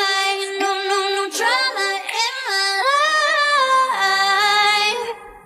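A song with a woman singing long held notes, with very little bass beneath the voice. It fades and cuts off suddenly near the end.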